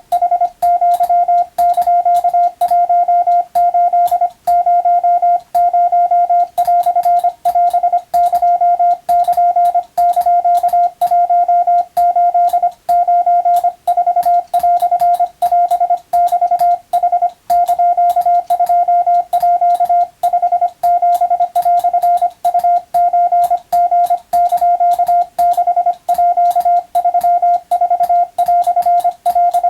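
Japanese (wabun) Morse code sent as a steady tone of about 700 Hz, keyed on and off in quick dots and dashes with short gaps between characters, and a faint click at each on and off.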